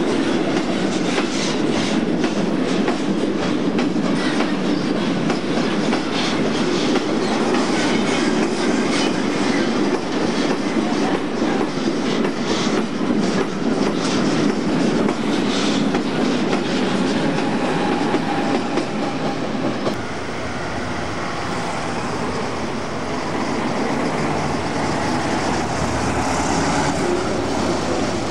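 Freight train of double-deck car-carrier wagons rolling past at close range: a steady rumble with rapid clicking of wheels over rail joints. The clicking thins out and the sound eases a little about twenty seconds in.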